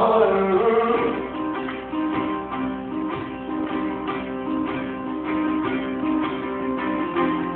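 Live instrumental passage led by a picked banjo playing a steady repeating figure. A sung line trails off in the first second.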